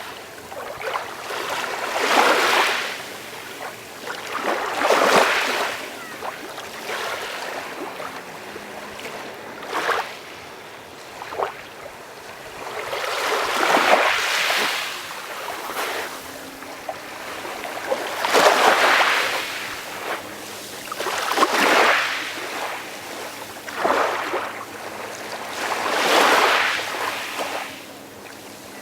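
Calm sea waves washing in gently, a soft hiss of surf that swells and falls away every few seconds.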